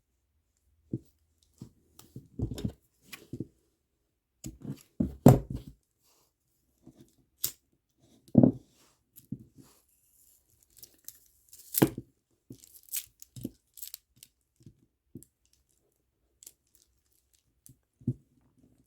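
Plastic kandi beads and old bracelet string being handled at close range: scattered clicks, rustles and short scrapes at irregular intervals, a few of them louder, as the bracelet is taken apart.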